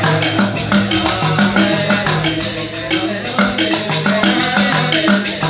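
Balinese genjek music: fast interlocking percussion of small cymbals and bamboo over a low, pulsing bass line, played without a break.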